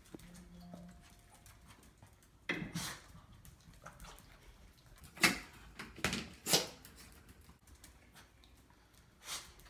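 Shih Tzu making short excited whimpers and snuffles, several separate bursts, while greeting the cats nose to nose.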